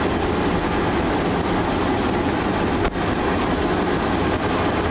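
Steady rumble and rush of road and wind noise inside a moving car's cabin, briefly dropping out about three seconds in.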